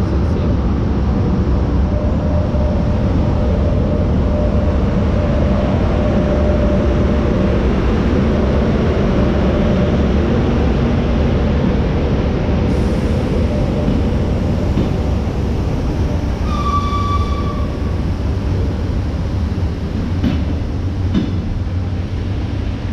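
EP1M electric locomotive and its passenger coaches rolling slowly past as the train arrives into the station: a loud, steady rumble of wheels on rail, with a steady hum from the locomotive during the first third. A brief high squeal about two-thirds of the way through.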